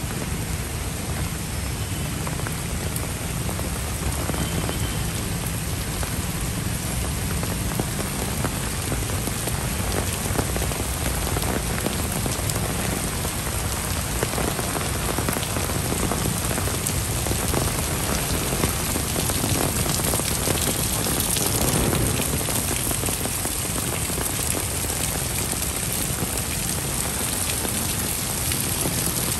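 Heavy rain falling steadily on paving, puddles and leaves: a dense, even hiss full of the patter of individual drops, swelling a little about twenty seconds in.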